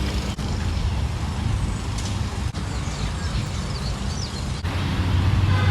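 Steady low rumble of a motor vehicle driving on the road, broken by brief dropouts every couple of seconds where short clips are joined.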